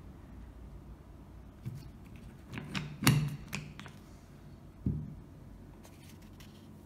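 Hand-operated eyelet and grommet press setting a metal grommet into banner material: a few light metal clicks, then a sharp metallic clack about three seconds in, followed by a duller thunk near five seconds.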